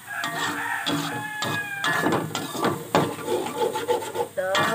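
A metal fork scraping and stirring minced pork and egg in an aluminium wok, a quick, irregular run of rasping scrapes against the pan's metal.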